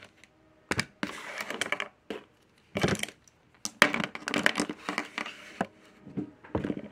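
Close handling noise: a fleece sleeve and hand rubbing and brushing against the phone's microphone, in irregular crackly, scratchy bursts with small sharp clicks and knocks.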